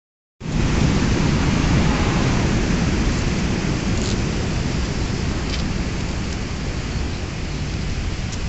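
Strong wind rumbling on the microphone over high surf, stirred up by an approaching typhoon. It starts suddenly about half a second in, then keeps up a loud, rough, steady noise.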